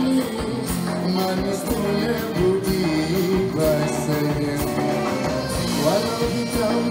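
Live band playing a Malay pop-traditional song, a man singing lead into a microphone over a steady drum beat.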